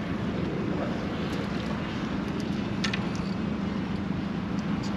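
Steady low hum with wind noise on the microphone aboard a small fishing skiff, and a few faint clicks about three seconds in.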